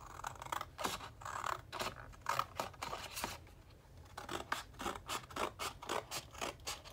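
Scissors cutting across a sheet of paper: a run of quick repeated snips, easing off briefly a little past halfway before resuming.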